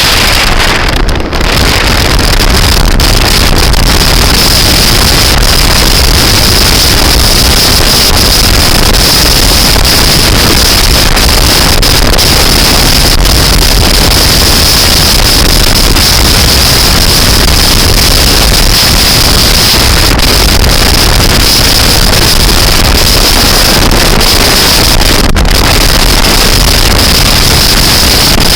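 Loud wind noise buffeting the microphone of a moving scooter, with the scooter's engine running steadily underneath.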